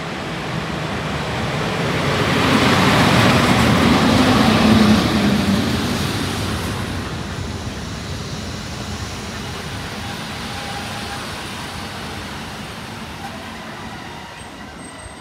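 PKP Intercity EP07 electric locomotive hauling passenger coaches past along the platform track. It is loudest about three to five seconds in as the locomotive goes by, with a low steady hum, then the coaches' wheels rumble on the rails and the sound slowly fades.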